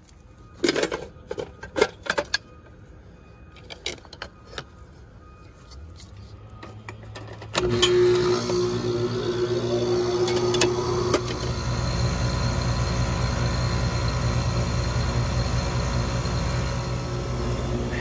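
A few sharp clicks and knocks. Then, about seven and a half seconds in, the Trane outdoor air-conditioning condensing unit starts suddenly: its compressor hums and the condenser fan spins up, and the unit keeps running steadily.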